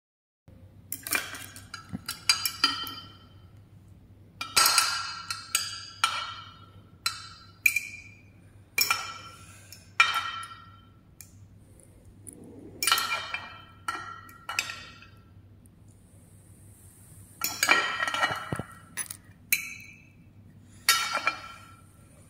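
A steel knife and fork clinking and scraping against a glass baking dish as cooked chicken breast is cut into small pieces. There are many irregular clinks, each ringing briefly.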